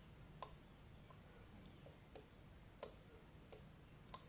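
A 12-volt relay clicking as it switches on and off while a magnet is moved at a fan's Hall sensor: about five faint, sharp clicks at uneven intervals.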